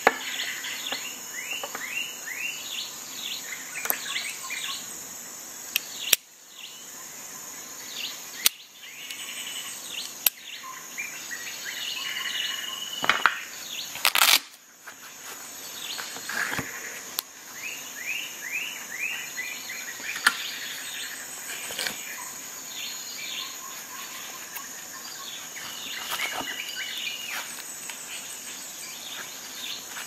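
Outdoor ambience: birds singing in repeated runs of quick falling notes over a steady high insect drone, with a few sharp clicks scattered through.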